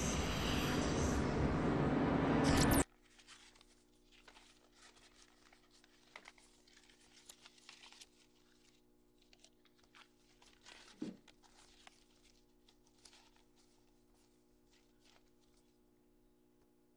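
A loud, even rushing noise cuts off suddenly a few seconds in. Then comes a quiet shop room tone with a steady electrical hum and scattered faint rustles and clicks, as items are handled at a cash-register counter.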